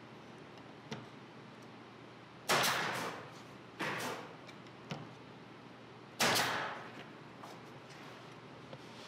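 Cordless nail gun firing three nails into wooden scenery pieces, each a sharp shot with a short fading tail; the second comes about a second after the first, the third a couple of seconds later.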